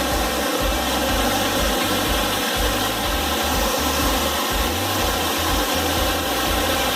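Steady rushing of a waterfall, an even wash of noise with an uneven low rumble beneath it.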